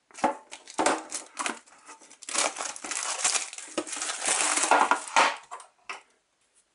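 Plastic wrapping being peeled off a metal trading-card tin and crumpled: a run of crinkling and tearing rustles that thickens midway and stops about five seconds in.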